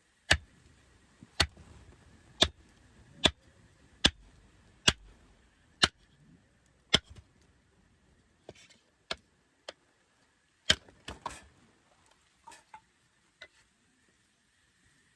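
Sharp knocks of wood being split for a campfire, about one a second, eight in a row. They are followed by fainter, irregular knocks and a quick cluster of taps.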